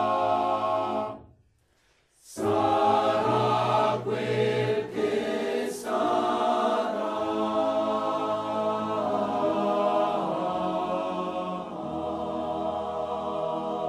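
Choir singing long held chords. It breaks off into near silence for about a second shortly after the start, then resumes.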